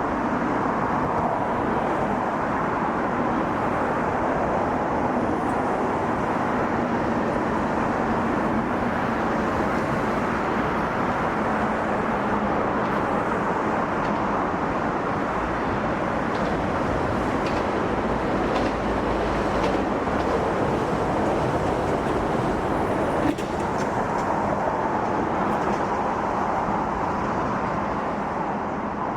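Steady rush of vehicle traffic noise at an even level throughout, with a single short knock about 23 seconds in.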